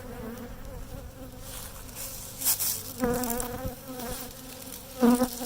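Honeybees buzzing around an open hive, a steady drone. Now and then a single bee flies close past the microphone, and its buzz wavers up and down, about three and five seconds in. Two short rustling noises are heard too.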